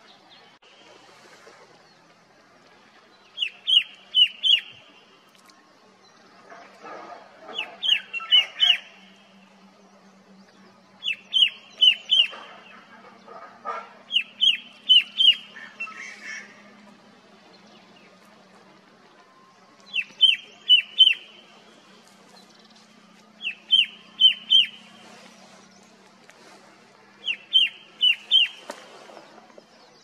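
Male Himalayan shrike-babbler (red-winged shrike-babbler) calling: a short loud phrase of three or four sharp, ringing notes, repeated seven times every few seconds.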